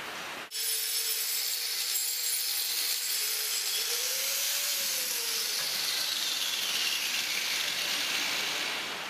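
Handheld power hoof-trimming tool grinding at a cow's hoof. It starts abruptly about half a second in, a hissing grind with a whine that rises and falls in pitch as the tool bites.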